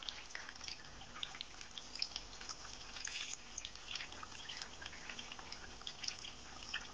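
Hot oil sizzling around pinwheel samosas frying in a pan, with many quick scattered crackles and pops.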